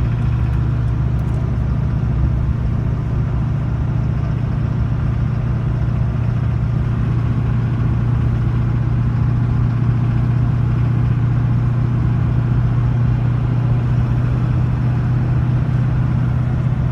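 Car engine running steadily at an unchanging speed; the owner is asking what its knock noise is.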